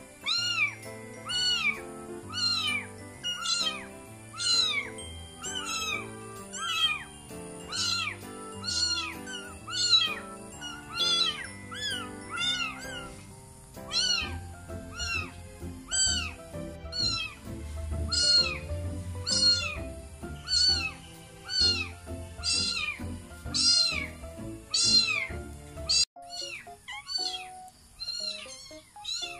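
Newborn kittens mewing over and over, short high cries that rise and fall, about one a second, over background music. The cries stop near the end.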